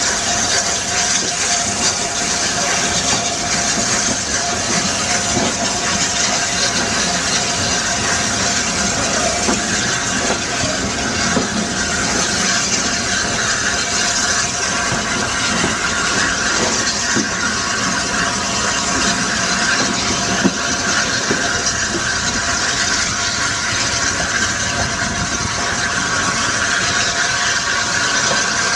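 LNER Peppercorn A1 Pacific steam locomotive, a three-cylinder engine, working a passenger train slowly past, with a steady hiss of escaping steam and the rumble of the train.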